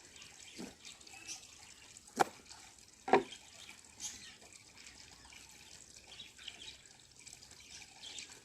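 Tripod packaging being handled and opened: faint crinkling and rustling, with two sharp clicks or snaps about two and three seconds in.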